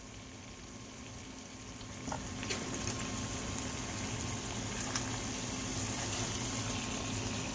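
Ribeye steaks with sliced peppers, onions and mushrooms sizzling and bubbling in their juices in a skillet, a steady sizzle that grows a little louder about two seconds in. A few light clicks of a fork against the pan and a steady low hum underneath.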